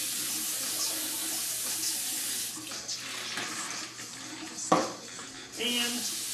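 Kitchen tap running as a metal cocktail shaker is rinsed under it. The water runs strongly for a couple of seconds and then lighter and more broken. A single sharp knock comes about three quarters of the way through, the loudest sound, followed by a short ringing tone.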